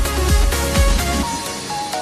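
Electronic dance music with a steady kick-drum beat and a synth melody; the deep bass and beat drop out a little past halfway.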